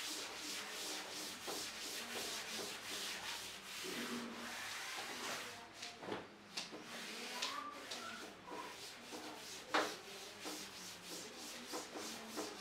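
A blackboard being wiped with a cloth duster: a steady run of short, faint rubbing strokes across the board, broken by a few sharper knocks.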